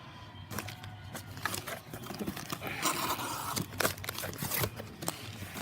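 A box being unpacked by hand: paper and packing crinkling and rustling, with scattered taps and clicks, and a denser stretch of rustling about halfway through.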